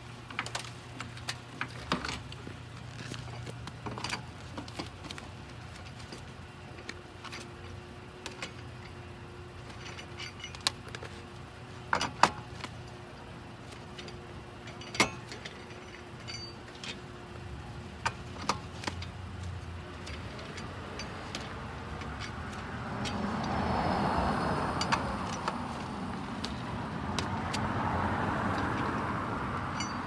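Scattered metallic clicks and clanks as a hydraulic floor jack is pumped and lug nuts are turned with a four-way cross lug wrench. A louder rushing noise swells twice in the last third.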